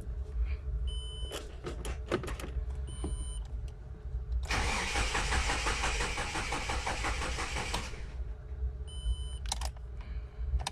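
Starter motor cranking the Great Wall Hover 3 engine for about three and a half seconds with an even rapid pulsing, the engine not firing because the ignition coil and ground wire were left unconnected. Short electronic beeps and clicks come before and after the cranking.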